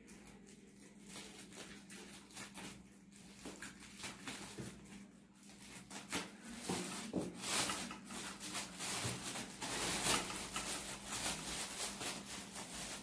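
Clear plastic wrap crinkling and rustling as it is cut with scissors and pulled off a boxed kit by hand, a stream of small crackles that grows louder and busier about halfway through.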